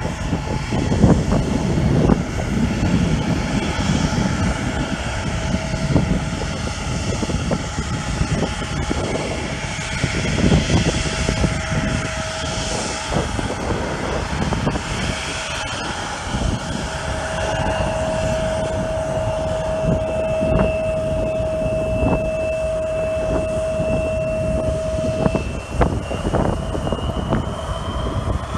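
A Bombardier CRJ regional jet's two rear-mounted turbofan engines whining steadily at low power while it taxis and lines up on the runway. Near the end the whine begins to rise in pitch as the engines spool up for the takeoff roll.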